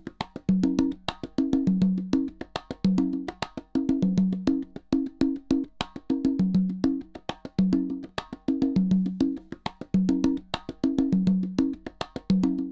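Speaker-calibration test signal: a looped percussion pattern of dry wood-block-like clicks over short low notes, repeating every second or two. It is used to match the centre speaker's level to that of the left and right speakers.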